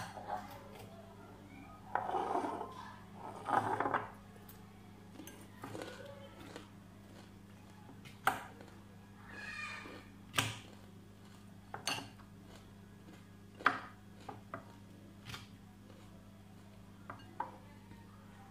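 Metal fork clinking and scraping against a glass bowl while tossing chopped salad vegetables, with short rustling stirs early on and sharp single clinks every second or two later.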